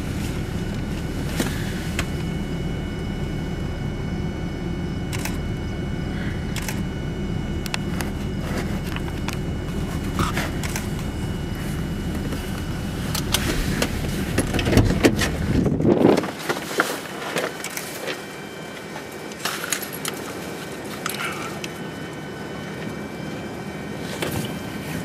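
A vehicle engine runs with a steady low rumble. About two-thirds of the way through the rumble cuts off abruptly, leaving quieter noise with scattered clicks and knocks.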